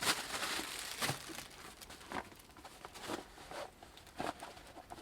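Rustling and crinkling of a small bag and its packaging being handled and opened: a dense rustle over about the first second, then scattered crinkles and light knocks.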